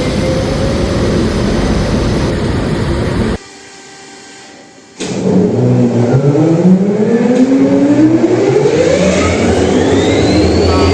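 EMD two-stroke diesel engine of a WDP4D locomotive running loud, then after a sudden quieter gap of about a second and a half it starts up again. Its pitch climbs steadily over the last five seconds as the engine and turbocharger spool up, with a high rising whine on top.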